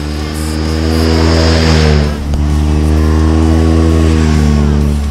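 Motorcycle engine pulling hard. Its pitch climbs for about two seconds, dips briefly, then holds steady at high revs.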